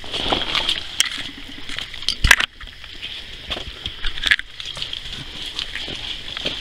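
Footsteps squelching on a wet, muddy trail, with knocks from the handheld camera and one loud bump a little past two seconds in, over a steady high-pitched drone of forest insects.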